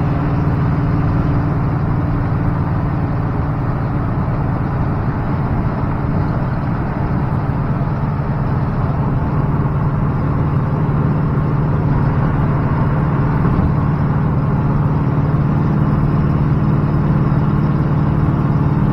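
Chevrolet pickup truck cruising at a steady highway speed, heard from inside the cab: a steady low engine and exhaust drone mixed with road and wind noise.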